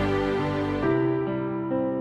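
Background music: a slow, gentle instrumental piece with sustained notes changing about once a second.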